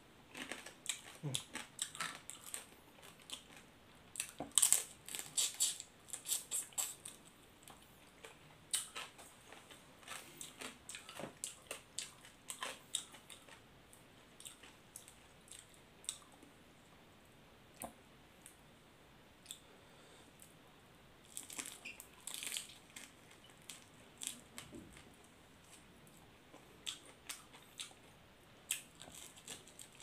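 Close-up eating sounds of a large grilled prawn's head: the shell cracking and being pulled apart by hand, with crunching, chewing and sucking. It comes in clusters of quick crackling snaps, busiest about four to seven seconds in and again past the twenty-second mark, with quieter stretches between.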